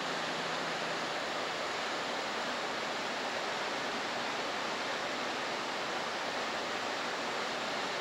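Steady rushing of a waterfall, even in loudness.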